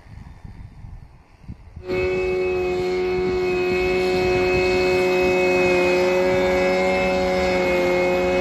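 Faint uneven low noise for about two seconds, then suddenly a loud, steady hum of several held tones from a large multirotor agricultural sprayer drone flying.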